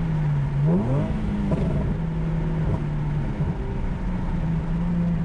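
Nissan 370Z's 3.7-litre V6 through Motordyne long-tube headers, resonance test pipes and an AAM S-Line midpipe and muffler, heard from inside the cabin while driving. The engine note dips, then rises quickly about a second in, and settles into a steady cruising drone.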